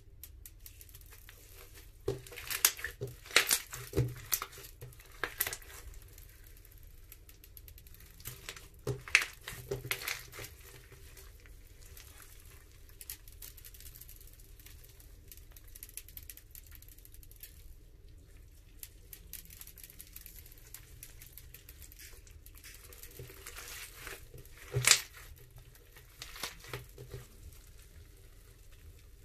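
Crunchy slime with beads being stretched, pulled and squeezed by hand, giving clusters of crackles and pops. The crackling comes in three spells, the loudest single pop near the end, with quieter sticky crackle between.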